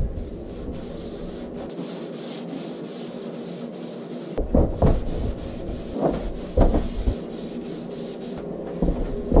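A cloth being rubbed back and forth over a wooden door panel, wiping on wood stain in repeated strokes, with a few louder strokes in the second half. A steady low hum runs underneath.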